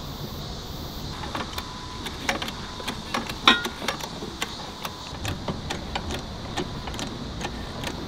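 Irregular metallic clicks and knocks from TurfRoller TR5000 turf roll carts being fitted into a roll of artificial grass, with one louder, briefly ringing metal clank about three and a half seconds in.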